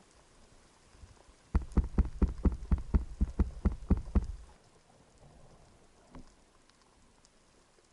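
A rapid series of about a dozen sharp knocks heard underwater, about four a second, starting about a second and a half in and stopping after about three seconds, with one fainter knock after it.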